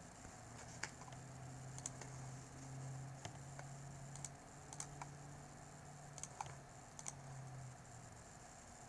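Faint, irregular clicks of a computer keyboard in a quiet room, over a low steady hum that stops near the end.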